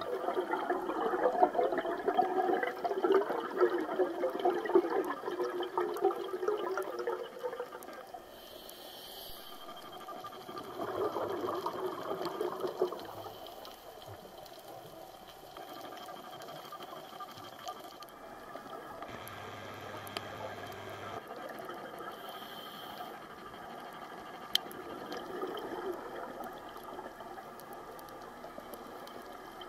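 Scuba diver's exhaled bubbles from the regulator, heard underwater: a long bubbling burst for the first seven seconds or so, a shorter one about ten seconds in, and a faint one near the end, over a steady underwater hiss.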